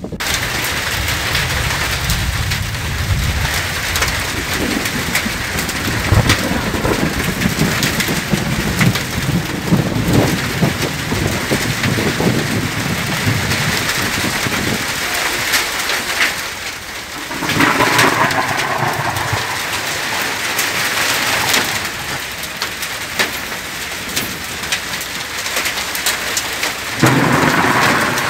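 Hailstorm: hailstones and heavy rain pelting down, a dense hiss scattered with sharp ticks of stones striking. A deep rumble under it is strongest in the first half.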